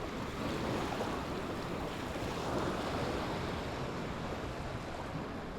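Sea waves washing onto a beach, a steady rushing wash that swells twice, with wind on the microphone.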